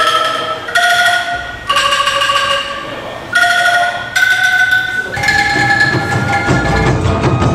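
Angklung, shaken bamboo tubes, playing a melody one note at a time, each note held about a second. About five seconds in, a fuller accompaniment with low notes comes in underneath.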